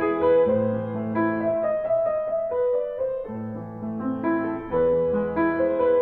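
Piano music playing sustained notes and chords that change every half second or so.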